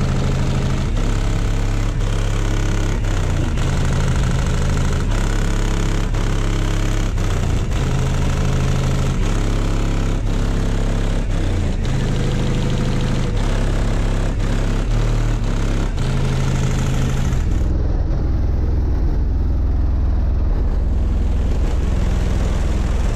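Bass-heavy music played very loud through a competition car-audio subwoofer system in a van, heard from outside; deep bass notes step in pitch about once a second over a steady beat. About eighteen seconds in the upper part of the music drops away, leaving mostly deep bass.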